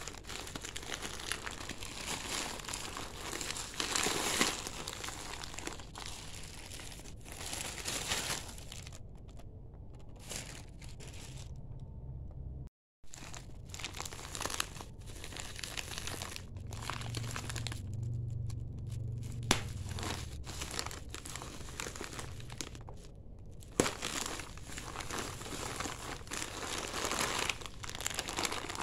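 Plastic packaging crinkling and rustling as a courier mailer bag and bubble wrap are handled and pulled open by hand, with a couple of sharp clicks. There is a brief drop to silence near the middle.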